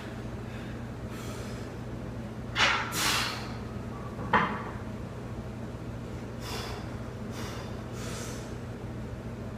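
A lifter's heavy, forceful breathing between reps of a heavy barbell back squat: two loud sharp breaths a little under three seconds in, a short snort about a second and a half later, then three softer breaths as he braces for the next rep. A steady low hum runs underneath.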